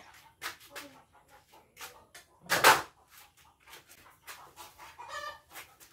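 A string of light knocks and clicks from kitchen items handled on a concrete counter, with one much louder sharp sound about two and a half seconds in.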